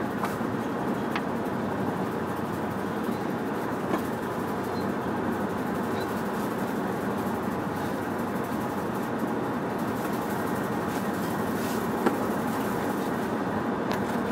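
Steady road and engine noise heard inside the rear of a moving van, with a few light clicks or rattles.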